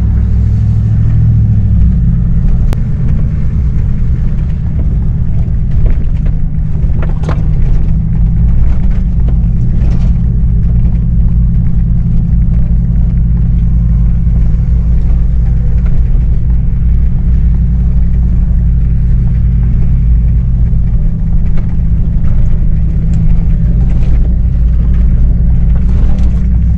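Pickup truck's engine and drivetrain giving a steady low drone while it crawls along a rough off-road trail, with a few brief knocks and rattles from the bumps.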